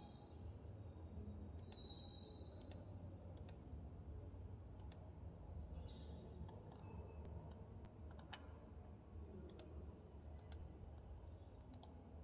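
Computer mouse clicking: about a dozen scattered single clicks, some in quick pairs, over a faint low hum.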